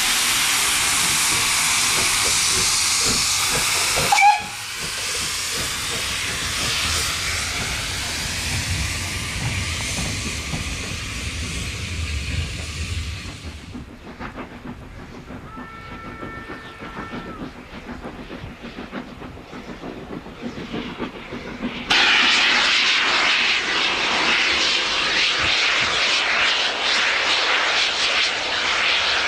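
Steam locomotive (Southern Railway Schools Class 4-4-0 No. 30926 'Repton') hissing loudly with steam, with a short whistle blast about four seconds in. After a quieter stretch a distant chime whistle sounds briefly, then a loud, steady rush of the working locomotive and train starts suddenly near the end as it passes under a heavy exhaust plume.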